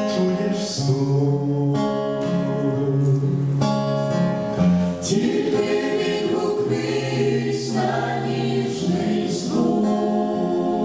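Gospel song performed by a church group: voices singing long held notes over acoustic guitar accompaniment.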